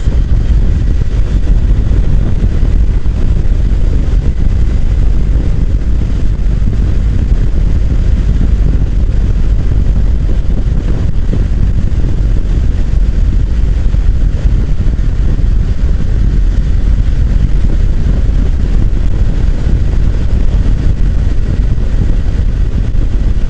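Motorcycle riding at speed: a steady, loud rumble of wind buffeting the rider's microphone over the engine and road noise.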